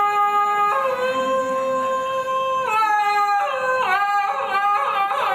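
A man's long, drawn-out shout through cupped hands, held on a steady pitch that steps up about a second in and wavers near the end: the traditional Thai 'ho' call that leads the cheer of a wedding procession.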